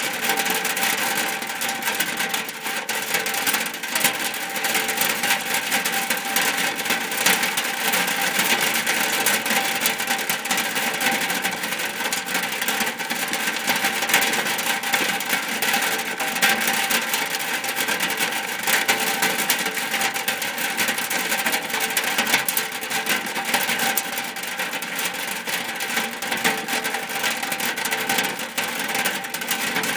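Rain falling steadily on a shack roof: a dense, unbroken mass of small drop hits with no letup.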